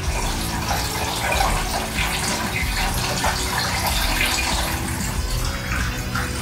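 Windshield washer fluid pouring from a plastic jug into a car's washer fluid reservoir in a steady splashing stream.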